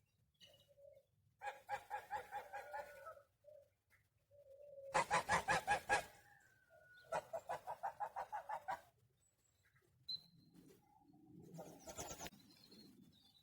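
Domestic fowl calling in three bursts of rapid pulsed notes, about seven or eight a second. The middle burst is the loudest, and softer short low calls come between the bursts.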